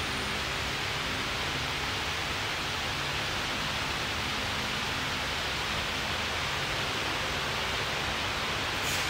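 Wall-mounted electric fan running, a steady rushing noise with a faint low hum.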